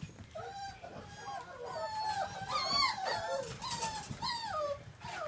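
Australian Labradoodle puppy whining and yipping in a rapid run of short high cries, several a second, many of them falling in pitch.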